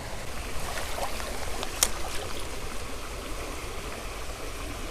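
Shallow creek water running over rocks, with light splashing from a hand in the water as a small trout is let go. There is one sharp click about two seconds in.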